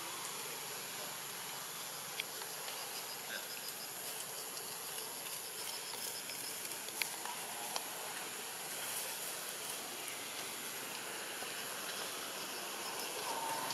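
Steady high-pitched drone of insects over a constant hiss of outdoor ambience. A faint run of rapid high chirps comes in the first half, and a few soft clicks.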